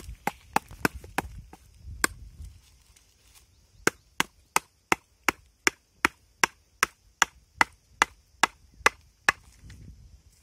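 Machete chopping at a palmyra palm fruit held on a stick, in short sharp strokes: a few scattered cuts at first, then a steady run of about three strokes a second for some five seconds.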